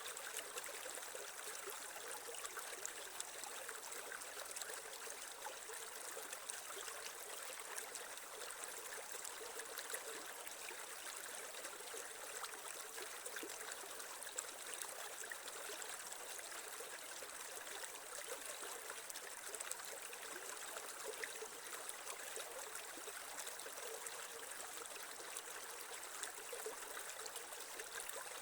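Shallow creek water babbling and trickling over stones, a steady rush with many small splashes and gurgles.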